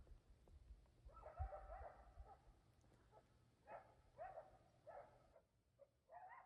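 Faint animal calls, barking-like, a short flurry and then single calls about every half second, with a low thump about a second and a half in.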